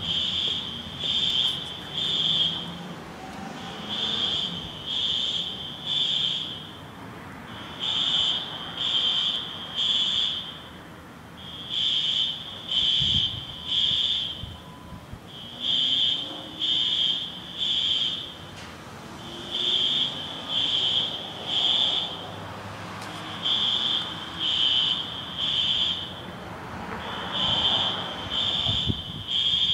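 System Sensor SpectrAlert Advance fire alarm horns sounding a high-pitched temporal-3 pattern: three blasts, a pause, then three again, repeating about every four seconds. It is the standard fire evacuation signal.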